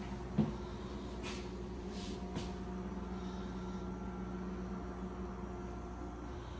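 Steady low mechanical hum with a faint higher tone above it. A single thump about half a second in, and a few faint ticks.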